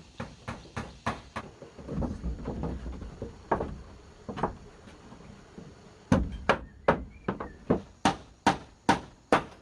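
A series of sharp knocks, about two to three a second, with a louder run of strikes in the last few seconds.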